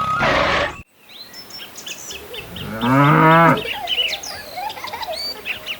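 A brief burst of noise cuts off abruptly just under a second in. Birds then chirp repeatedly, and a cow moos once, with a call that rises and falls, about three seconds in.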